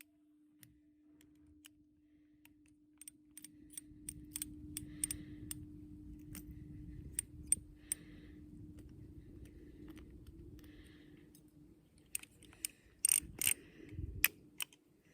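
Scattered light metallic clicks and rattles over a low steady hum, busiest about three to five seconds in and again near the end.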